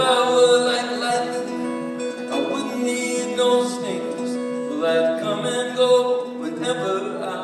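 Acoustic guitar strumming chords in a live band performance, with strokes every second or so, picked up by a phone's microphone in the audience.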